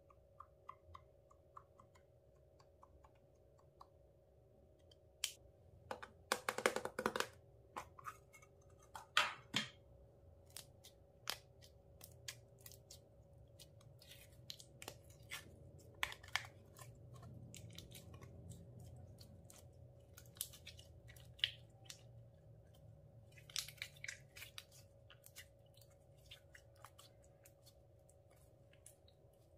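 Clear slime being squeezed and stretched by hand, giving sticky crackles and pops. A run of faint, even clicks comes at first, and the loudest crackling comes in clusters a few seconds later.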